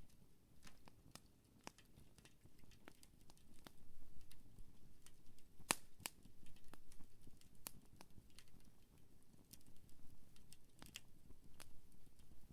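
Wood campfire crackling, with irregular small snaps and pops and one sharper pop about six seconds in.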